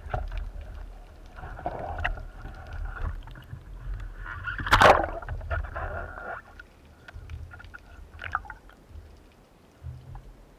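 Underwater sound of a spearfishing dive: a steady low rumble of water moving past the camera, with scattered small clicks, stretches of hissing, and one sharp loud crack about five seconds in.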